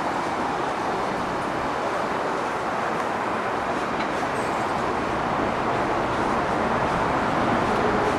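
Amtrak Amfleet passenger coaches passing at speed close by: a steady rushing noise of wheels on rail and moving air, growing a little louder near the end.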